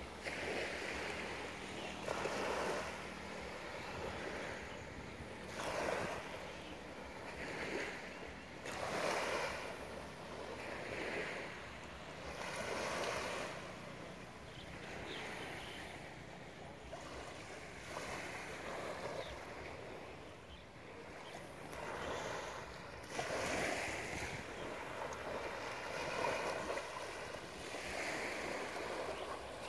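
Small waves lapping and washing onto a sandy beach, the wash swelling and falling away every couple of seconds.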